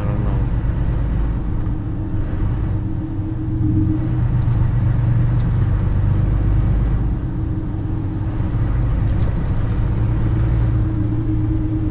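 Volvo FM 340 truck's diesel engine running while driving, heard from inside the cab: a steady low drone that swells about four seconds in and again near the end. A faint high whine rides on the louder stretches.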